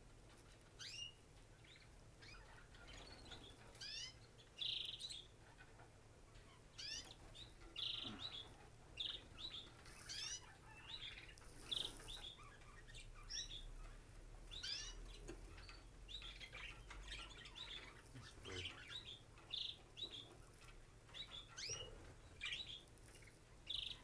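Baby canary chick cheeping in many short, quick chirps at irregular intervals: begging calls as it is hand-fed from a syringe.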